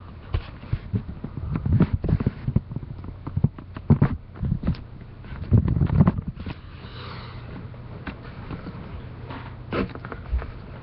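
Handling noise from the recording device being moved and set in place: a run of knocks, bumps and rubbing for the first six seconds or so. After that comes a steady low hum with a few faint clicks.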